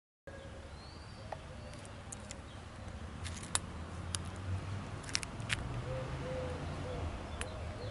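Outdoor ambience on an empty railway platform: a steady low rumble, a few sharp clicks around the middle, and some short low bird calls in the second half.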